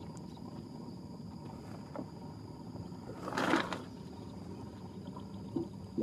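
Steady high insect drone over a low outdoor rumble, with a brief rush of noise about three and a half seconds in.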